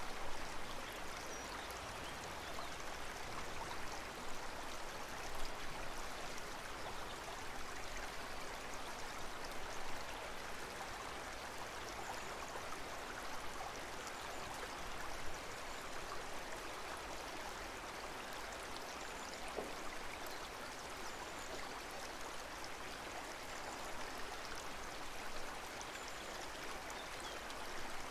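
Aquarium water running and trickling steadily, an even rush with a few small splashes.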